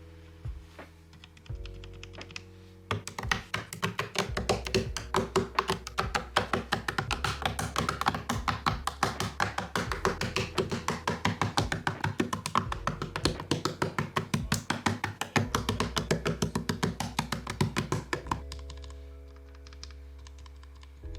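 Typing on a custom mechanical keyboard: a fast run of key clacks begins about three seconds in and stops a few seconds before the end, over soft background music.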